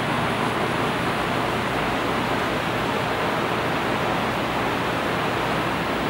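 Steady, even rushing air-handling noise with a low hum underneath, unchanged throughout.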